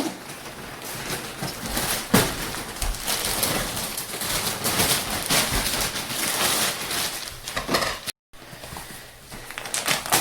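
Plastic wrapping crinkling and rustling in irregular crackles as it is handled and pulled off a mattress, breaking off for a moment about eight seconds in.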